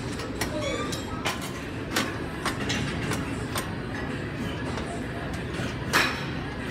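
Metal plates of a gym weight-stack machine clanking as it is worked in rows: short sharp knocks at irregular intervals, the loudest about six seconds in, over a steady rumble of gym background noise.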